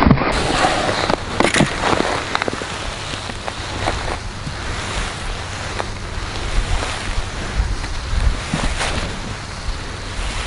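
Wind buffeting the camera microphone, a steady rushing noise, with a few short knocks scattered through it.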